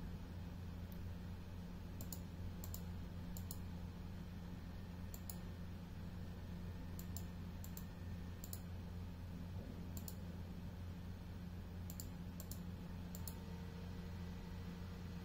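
Computer mouse clicks: about a dozen sharp, faint clicks at irregular intervals, some in quick pairs, as menu items are selected. A steady low hum runs underneath.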